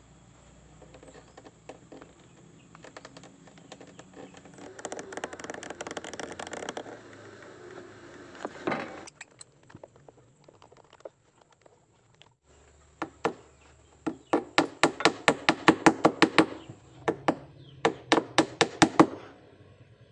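Hand-tool work on a wooden boat hull: scraping and rubbing, a single sharp knock, then two runs of quick sharp clicks, about five a second, in the second half.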